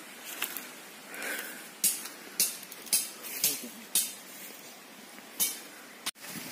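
A metal hand tool chopping into soil and roots to dig out a serut shrub stump: about six sharp, clinking strikes roughly half a second apart, with a pause before the last one.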